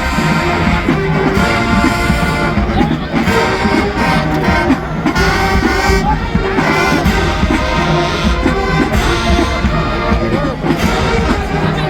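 Loud marching band playing, with the brass section carrying the tune.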